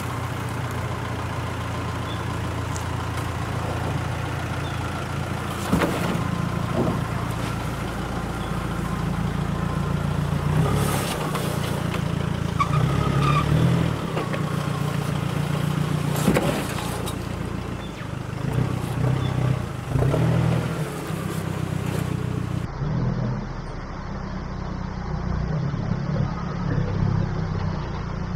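Four-wheel-drive vehicle's engine working at low revs as it crawls over off-road terrain, its note rising and falling with the throttle, with a few sharp knocks along the way.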